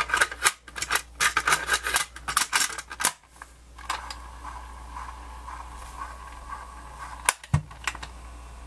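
Clicks and rattles of a cassette being loaded into an RCA personal cassette player and its door snapped shut. Then the player's small motor and tape mechanism run with a faint steady whir, and two sharp button clicks come near the end. The mechanism spins but does not play the tape properly, which the owner takes to be probably a belt issue.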